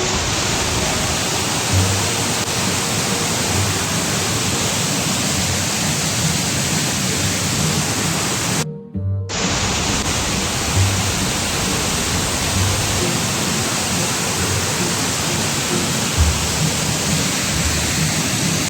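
Waterfall: a loud, steady rush of falling water, broken once by a brief cut about nine seconds in.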